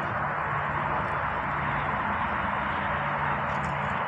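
Steady outdoor background noise: a continuous even hiss with a faint low hum underneath and no distinct events.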